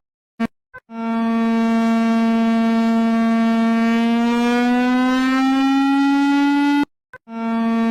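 Emergency alert alarm tone: a loud, buzzy siren tone that holds steady, then slowly rises in pitch. It cuts off abruptly near the end and restarts at its original pitch. A couple of short clicks come before it starts about a second in.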